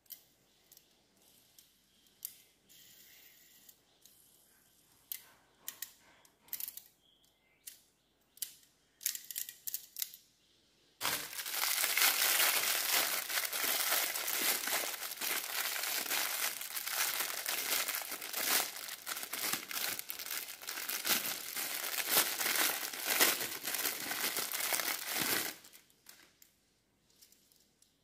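Thin clear plastic packaging bag crinkling and crackling as it is unwrapped by hand. The sound is loud and continuous for about fourteen seconds and cuts off suddenly near the end. Before that there are only scattered light clicks and rustles.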